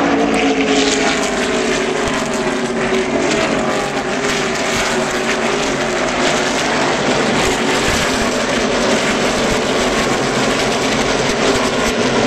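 A pack of NASCAR Xfinity Series stock cars racing past, many V8 engines running at once, with their notes sliding in pitch as cars go by.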